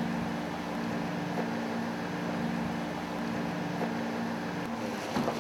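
A steady mechanical hum made of several low steady tones; one of the tones drops out about four and a half seconds in, and a few faint knocks follow near the end.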